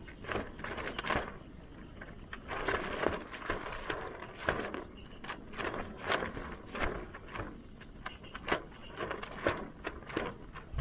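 Wood fire crackling, with irregular sharp pops and short bursts of crackle and scraping.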